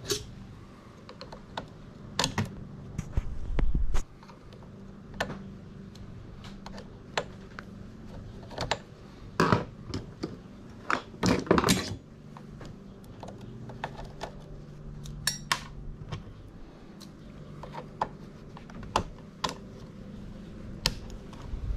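Irregular metallic clicks, taps and clinks of hand tools and loose parts while a sewing machine is being dismantled. A low rumble underneath cuts off abruptly about four seconds in.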